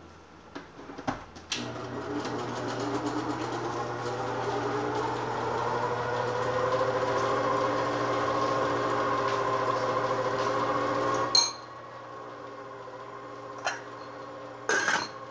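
A small electric appliance motor running with a steady hum and a slowly rising whine, then cutting off abruptly with a click about eleven seconds in.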